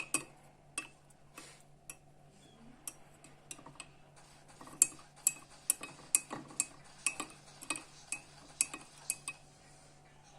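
Teaspoon stirring honey into hot milk in a glass, clinking against the glass in quick, irregular taps that come more often in the second half.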